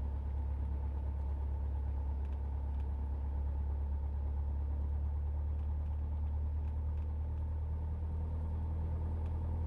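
Cessna 172's piston engine and propeller idling in a steady low drone as the plane begins to roll at walking pace.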